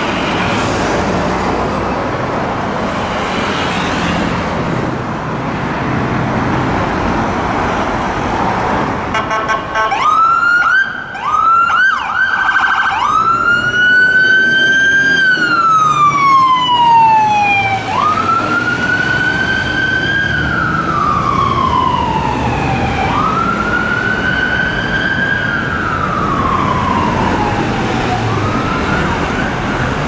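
Road traffic noise, then a fire engine's electronic siren starts about a third of the way in: a few quick short sweeps, then a wail that climbs quickly and falls slowly over about five seconds, repeating several times as the aerial ladder truck sets off on an emergency call.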